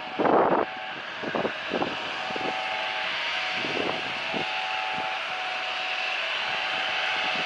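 Jet airliner engines on approach, a steady hiss that slowly grows. Gusts of wind hit the microphone at the start.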